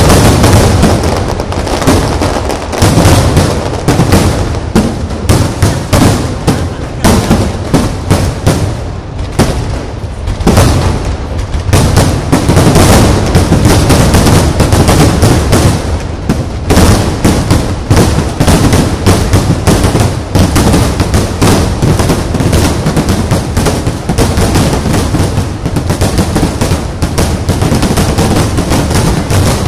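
Aerial fireworks in a finale barrage: many shells bursting and crackling in quick succession, with a heavy booming rumble underneath and no let-up.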